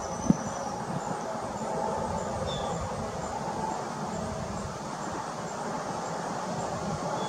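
Steady low rumble of distant traffic, with faint, evenly repeating high chirps over it. A single short thump comes just after the start.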